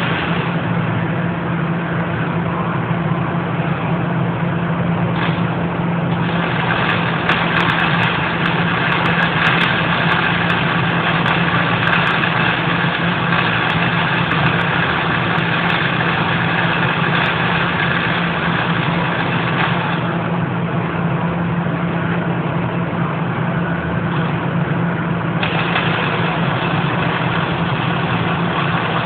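MIG welding arc crackling and sizzling steadily over a constant low hum. The crackle eases for a few seconds about two-thirds of the way through, then comes back strongly, with a few sharp pops in the first half.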